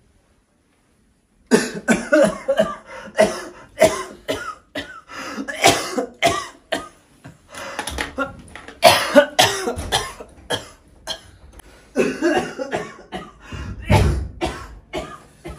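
A person coughing hard and over and over, with throat clearing, starting about a second and a half in after a silent moment.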